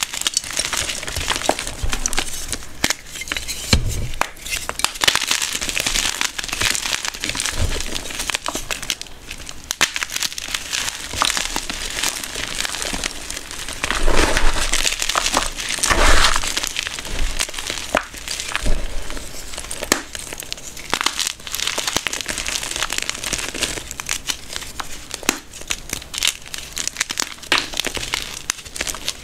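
Blocks of gym chalk crunching and crumbling as bare hands squeeze and break them in a bowl of loose chalk powder, a dense crisp crackle. About halfway through it swells into heavier crunches with a few dull thuds.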